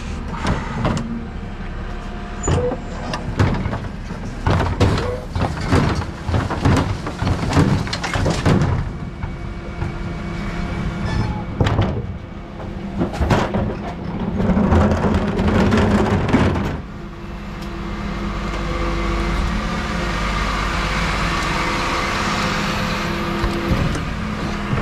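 Rear-loading refuse truck's Terberg bin lift cycling a wheelie bin: repeated clanks and bangs of the bin and lift over the truck's diesel engine running. For the last third the knocks give way to a steadier mechanical noise.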